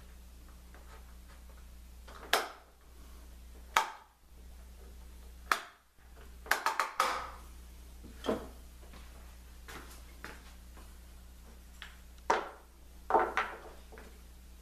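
Sharp clacks and knocks of metal bar clamps and small wooden blocks being handled and set on a plywood form: about a dozen separate hits, some in quick runs of three or four.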